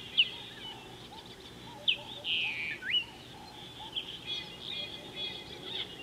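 Several birds calling: sharp, quick whistled notes, a rising whistle about halfway through, and chattering calls near the end, over fainter soft chirps.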